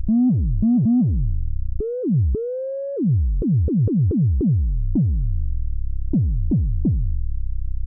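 Moog Werkstatt-01 analog synthesizer patched to play a kick drum: a series of short thumps, each falling steeply in pitch, at uneven spacing as the knobs are adjusted, including a quick run of about six in a second near the middle. Twice in the first half a longer, higher note is held instead, and a steady low drone sounds underneath throughout.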